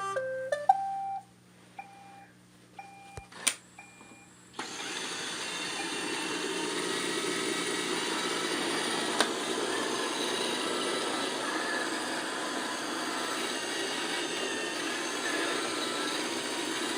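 iRobot Roomba 694 robot vacuum started with its Clean button: a click and a short tune of beeps, then about four and a half seconds in its vacuum motor and brushes start and run steadily.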